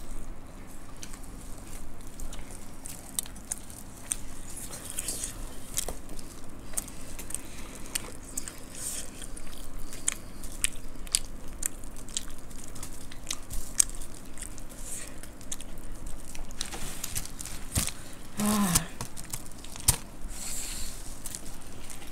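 Close-up eating sounds: people chewing and crunching puffed rice (murmura) and fried snacks, with many short wet mouth clicks and smacks. There is a brief low hum of a voice about 18 seconds in.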